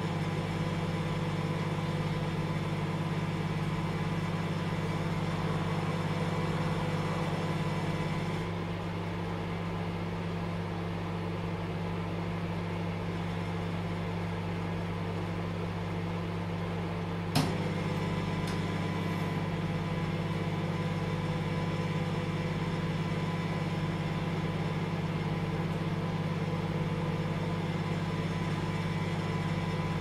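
Microwave oven running with a steady hum. About eight seconds in, part of the hum drops out, and about seventeen seconds in a single sharp click brings the full hum back.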